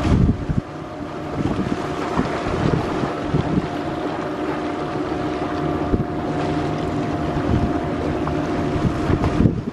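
Wind buffeting the microphone, with strong gusts at the start and again near the end, over a steady engine drone.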